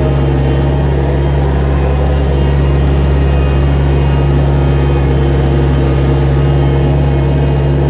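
Gehl skid steer's engine running steadily at an even, unchanging pitch.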